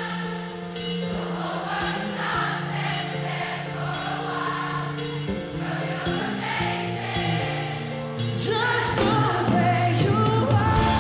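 A large crowd singing a chorus along with a live pop band, over a steady drum beat. The music and voices grow louder about eight seconds in.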